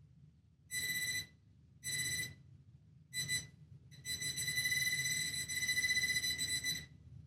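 Handheld metal-detector pinpointer probe beeping: three short beeps about a second apart, then one steady beep of about three seconds, all on the same high tone. It is being swept over plasterboard to pick up the metal of screws hidden under the jointing compound.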